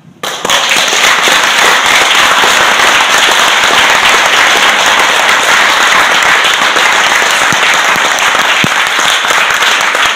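Loud applause from the audience and the panel, breaking out abruptly about half a second in and holding steady as a dense patter of many hands.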